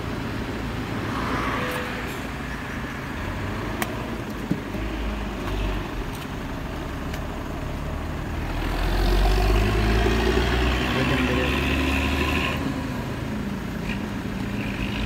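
Road traffic rumbling beside the stall, with a motor vehicle's engine swelling loudest from about nine to twelve seconds in, then easing off. A couple of sharp clicks sound around four seconds in.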